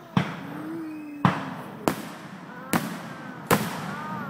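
Aerial fireworks shells bursting: five sharp bangs, a little under a second apart, each trailing off briefly.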